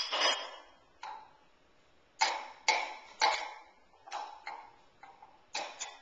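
Dishes and glassware clinking as they are set into a dishwasher's wire rack: about ten sharp, briefly ringing clinks at irregular intervals, the loudest bunched together in the middle.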